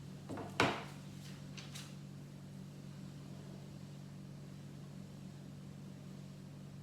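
Plastic Lego pieces clicking as they are handled and pressed together: one sharp click about half a second in, then two fainter clicks about a second later, over a low steady hum.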